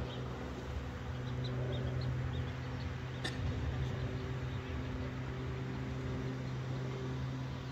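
Steady low engine hum, with a few faint high bird chirps early on and a single sharp click a little after three seconds in.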